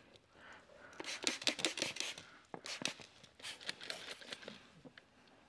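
A run of short, scratchy hissing and rustling bursts from hands-on work with wet paint protection film on a steel bumper. The bursts come in a quick cluster about a second in and again from about three to four and a half seconds.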